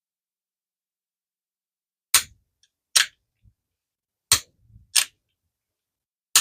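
Quantum 1421 MGC baitcasting reel, freshly reassembled and worked by hand, giving five sharp clicks spaced about a second apart, starting about two seconds in.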